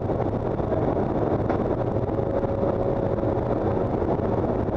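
Steady, loud drone inside a military transport aircraft's cabin in flight: engine and airflow noise with a constant hum, and one faint click about a second and a half in.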